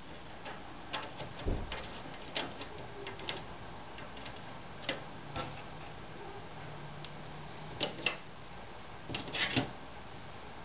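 Irregular light metallic clicks and taps of a hex key and small nuts and bolts being handled on an aluminium extrusion frame, with a few quick clusters of clicks near the end.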